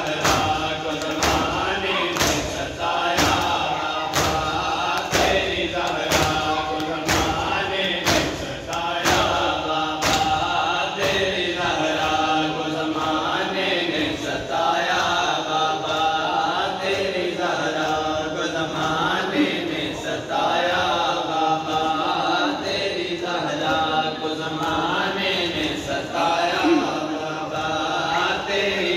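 Men's voices chanting a Muharram nauha lament together, over a steady beat of chest-beating matam strikes, a little under two a second. The strikes are sharp and loud for the first ten seconds or so, then fade under the chanting.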